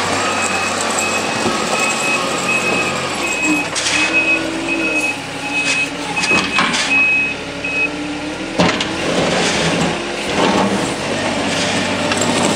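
Compact Caterpillar wheel loader's diesel engine running under work, with a high reversing alarm beeping on and off at a steady pace until about eight seconds in. There are a few sharp clunks along the way.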